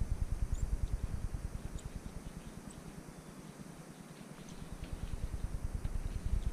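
Wind buffeting the microphone, a low fluttering rumble that eases off in the middle and picks up again.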